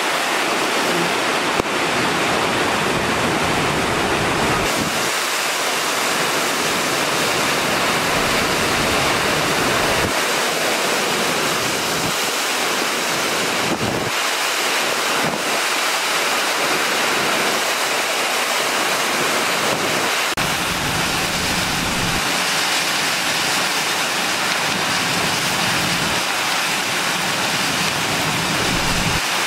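Hurricane wind and heavy rain rushing steadily. Gusts buffet the microphone in low rumbles that come and go every few seconds.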